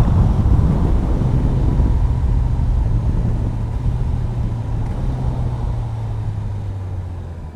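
Motorcycle engine running while riding, with rushing wind and road noise, gradually getting quieter through the stretch.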